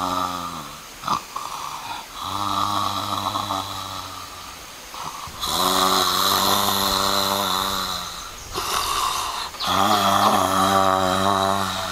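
A person snoring: four long, low, droning snores in a row, each held at a steady pitch for two to three seconds with short pauses between.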